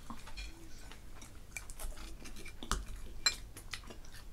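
Close-up eating sounds: fried chicken and mashed potatoes being chewed, with a few sharp clicks of a metal spoon against a dish, the loudest a little past halfway.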